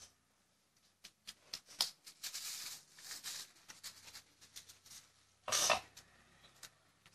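Hands handling small craft pieces: irregular light clicks and rustling scrapes, busiest in the middle, with one louder scrape a little after halfway.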